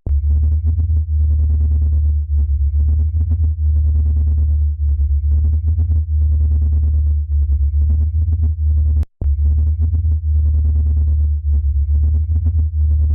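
Deep, steady electronic drone with a fluttering, flickering texture above it. It cuts out for an instant about nine seconds in, then carries on.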